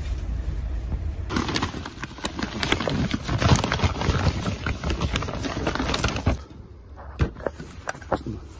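A plastic bag full of cartridges being handled: loud crinkling and rustling with rapid clicks for about five seconds, followed by a few separate knocks.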